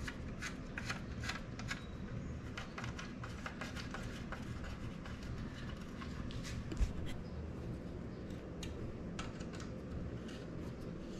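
Hands fitting a plastic chainring guard and its bolts onto an e-bike: scattered small clicks and ticks of plastic and metal being handled, with one dull thump about two-thirds of the way through.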